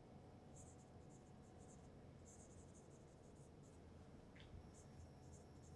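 Faint squeaks and scratches of a marker pen writing on a whiteboard, in quick runs of short strokes with brief pauses between words. There is one brief higher squeak a little past four seconds in.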